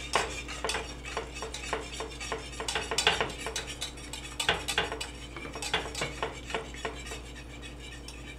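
Wire whisk stirring in a stainless steel saucepan, its wires clinking against the pan in an uneven run of about three clicks a second, as shredded cheese is worked into a hot cream sauce.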